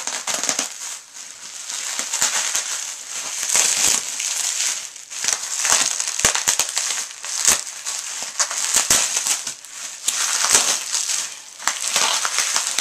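Plastic bubble wrap crinkling and crackling as hands pull and tear it open, in irregular handfuls with a few sharp cracks among the rustle.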